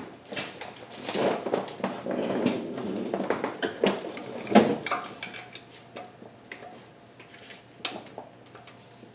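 Loose steel oil pan bolts clinking and clattering as they are handled and set down, with rustling and a sharp clack about four and a half seconds in; the handling thins out to a few light ticks in the second half.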